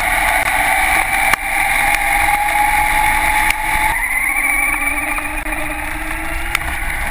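Radio-controlled car's motor and drivetrain whining as it drives, with a thin whine that slowly rises in pitch as it gathers speed. Its tyres hiss on wet pavement, and there are a few sharp clicks.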